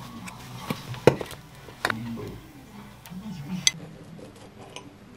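Sharp clinks and taps of tableware on a plate, the loudest about a second in, then a knife and fork cutting open-faced toast on the plate.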